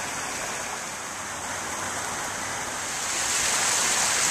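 Rushing, churning water in a pool, steady at first and growing louder and hissier about three seconds in.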